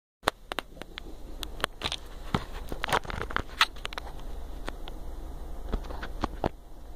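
Handling noise as a phone camera is moved and set in place: irregular clicks, knocks and rustles over a steady low hum.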